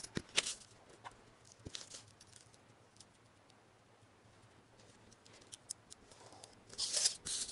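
Quiet handling of a sheet of paper and a metal ruler, with scattered light taps and rustles. Near the end comes a short scratchy stretch as a pen is drawn along the ruler on the paper.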